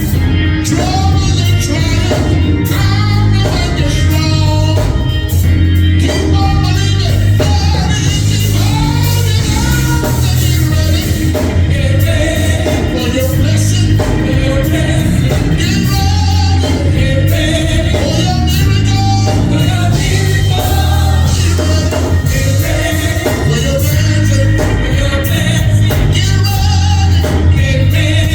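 Gospel music: voices singing over a band with a heavy, steady bass line and regular drum hits.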